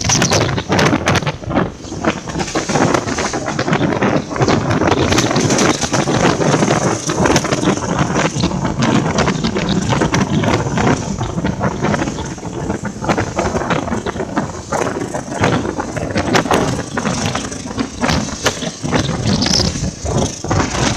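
Passenger train running, heard from the open vestibule between carriages: steady rumble of the running gear with constant rattling and clattering, and wind buffeting the microphone.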